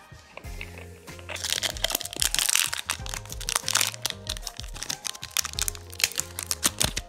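Music with a bass line and a steady drum beat.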